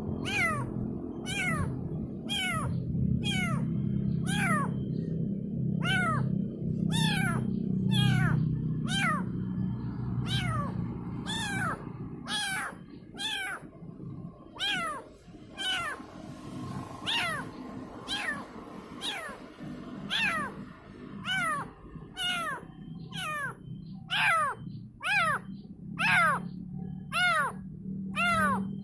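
Kitten meowing over and over to call its mother: short high calls, each falling in pitch, roughly one a second. A low steady rumble runs under the calls for the first half and returns near the end.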